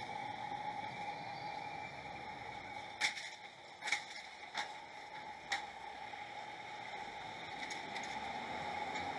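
Steady outdoor background hiss with a faint hum, broken by four sharp clicks spread over about two and a half seconds in the middle.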